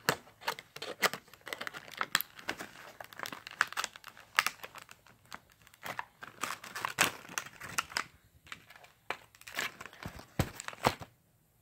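Plastic toy packaging crinkling and crackling as it is worked open with scissors: an irregular run of short clicks, snips and rustles.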